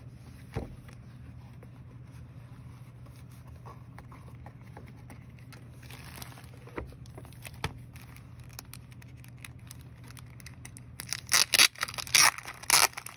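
Packaging being handled during an unboxing: a few light clicks and faint rustles, then from about eleven seconds in, loud, rapid crinkling and tearing of wrapping.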